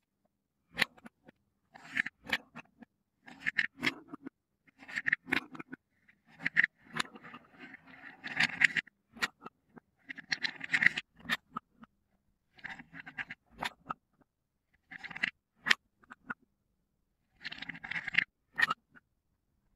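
Wooden balls scooped from wooden cups with a wooden spoon and tipped into a wooden bowl: the spoon scrapes against wood, and the balls knock and clack together as they land. It comes in repeated bursts a second or two apart.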